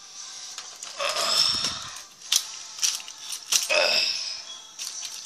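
Plastic Rock'em Sock'em Robots figures clattering as they are knocked about and tumble out of the ring: a few sharp plastic clacks, with two short scraping, squeaky passages.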